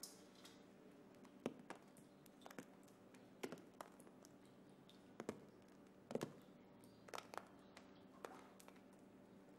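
Flakes of crumbling ceiling plaster dropping onto a pillow and floor, each landing as a light tap, irregularly about once a second, over a faint steady hum.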